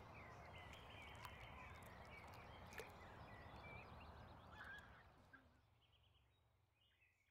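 Faint outdoor ambience with short bird calls and a low hum, with one brief tick about three seconds in, fading out over the last couple of seconds.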